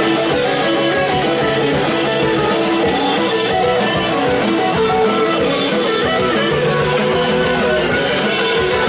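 Live emo/skramz band playing: distorted electric guitars ringing and strumming over an electronic drum kit, heard from right beside the drums.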